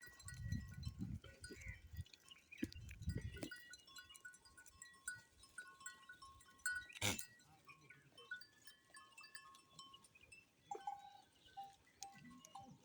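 Bells on a herd of goats clinking in short, bright, ringing tones. There is low rumbling in the first few seconds and a sharp click about seven seconds in.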